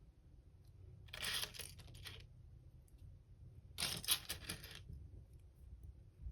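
Small plastic LEGO pieces clattering and clinking against each other in two short bursts, about a second in and again about four seconds in.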